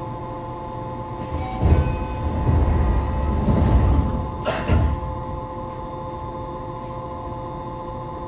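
Yokohama Municipal Subway 3000A-series train standing at the platform, its equipment humming steadily, with a louder low rumble between about one and five seconds in, marked by two sharp knocks.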